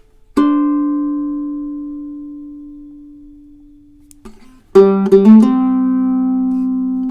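Koa-and-redwood tenor ukulele played solo, without effects. A note plucked about half a second in rings out and fades slowly for several seconds. Near the end, several notes are plucked in quick succession and ring on together.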